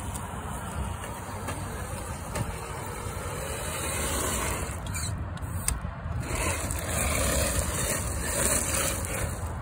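A TRX-4 RC crawler driving over loose gravel: its electric motor and drivetrain running while the tyres crunch and roll the stones. It gets louder from about four seconds in as the truck passes close by.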